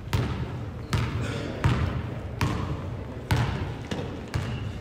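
A basketball being dribbled on a gym floor: six slow, even bounces about 0.8 s apart, each ringing briefly in the hall.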